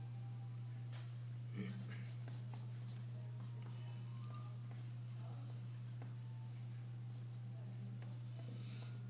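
Pencil scratching and shading on drawing paper in short, irregular strokes, over a steady low hum.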